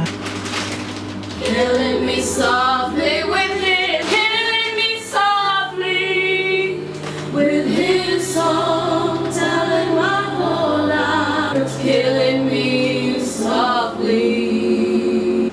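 Background music: a song with layered singing over held bass notes.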